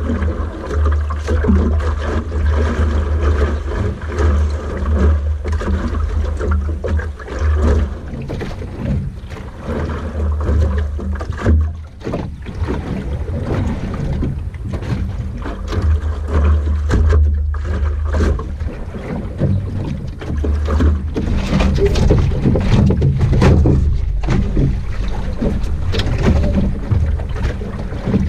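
Wind buffeting the microphone of a camera mounted on a small Optimist sailing dinghy under way, a gusty rumble that comes and goes, over water rushing and slapping along the hull.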